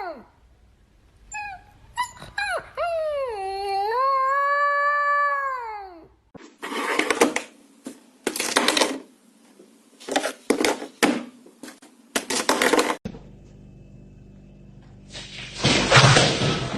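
A dog howling and whining in long calls that waver and slide in pitch, followed by a run of short, irregular bursts of noise.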